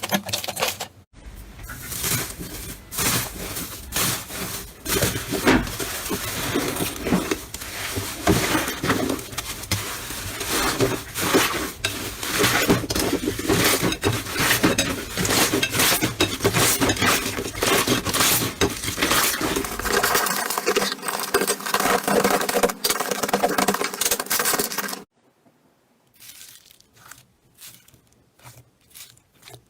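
Crunchy slime being squeezed and kneaded by hand, making dense crackling and clicking. It drops to quieter, scattered clicks near the end.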